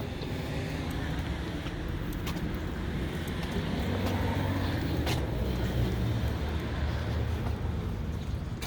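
Car engine running, a steady low rumble with a few faint clicks over it.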